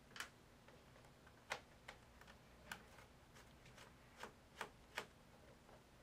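About seven light, irregular clicks of a small screwdriver working on tiny bottom-case screws of a MacBook Pro unibody, with the screws being set down on the table; otherwise near silence.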